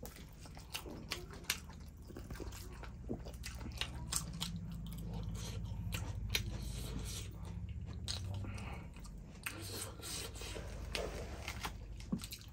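Close-miked eating sounds of two people eating chicken and rice by hand: chewing and biting with many short wet clicks and smacks, over a low steady hum.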